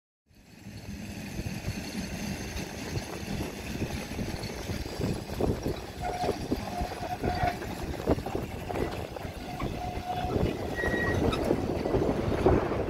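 Cable-hauled Great Orme Tramway tramcar rolling past on its rails: a steady low rumble full of clicks and knocks that grows louder near the end, with a few short squeals in the middle.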